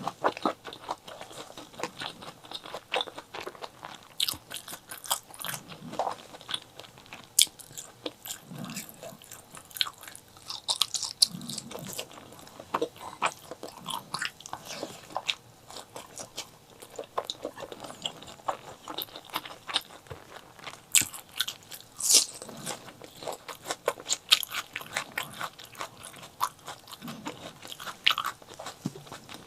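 Close-up mouth sounds of someone eating chili peppers and white rice: crisp bites and crunches with wet chewing, several irregular clicks a second.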